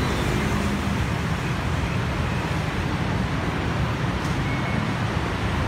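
Steady city road traffic: cars and motorbikes running along a busy street. A low engine drone fades out about a second in.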